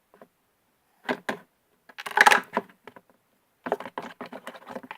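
Handling clatter during slime making: two light clicks, a louder clatter, then a quick run of small taps, as glow-stick pieces and utensils knock against the container.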